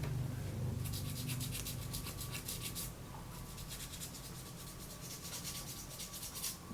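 Brisk rubbing strokes on paper, about six a second, in two runs with a short break about three seconds in.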